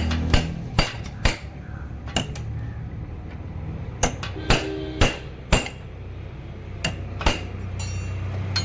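A hammer strikes a tightened flywheel puller about ten times at uneven intervals, metal on metal, with a short ring after some blows. The blows are shocking the magneto rotor loose from its taper on a Hero Splendor Plus BS6 crankshaft.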